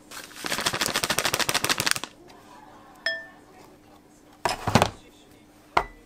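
A rapid rattle of many small clicks for about a second and a half, then a short electronic beep from a digital kitchen scale, followed by a clatter and a sharp knock of kitchenware being handled and set down.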